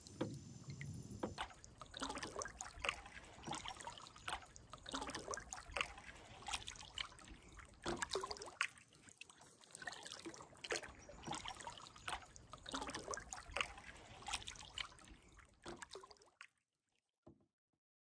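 A canoe paddle's carbon blade dipping into the water, with irregular small splashes and water dripping and trickling off the blade. The sound stops suddenly about 16 seconds in.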